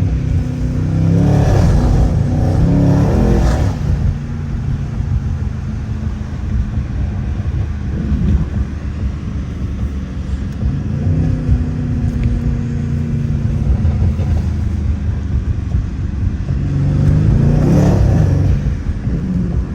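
Tuned Mercedes-AMG C63 engine and exhaust under hard acceleration, pitch climbing and dropping through two quick upshifts in the first few seconds, then running steadier at cruise before another rising pull near the end.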